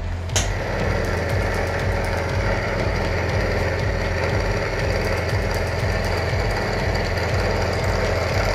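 Milling machine's end mill cutting D6 tool steel: the machine runs steadily under load with a rapid, dense chatter as the cutter chews through the steel, and one sharp crack about a third of a second in.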